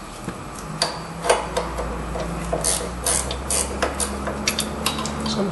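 Hand tools clinking and knocking against metal suspension parts as the lower nut of a front sway bar link is worked off, with a steady low hum underneath.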